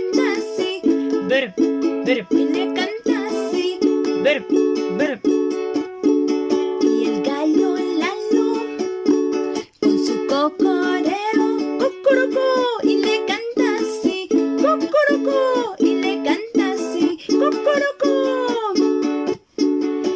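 Instrumental passage of a children's song: ukulele strumming steady chords, joined about halfway through by a lead line of notes that slide down in pitch.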